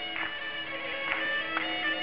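Traditional Karpathian folk music played live: a melody over a steady held drone note.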